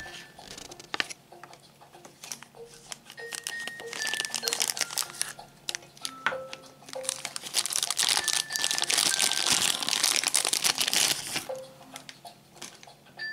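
Thin plastic bag crinkling and rustling as a die-cast toy truck is unwrapped, loudest from about eight to eleven seconds in. A soft chiming melody plays underneath.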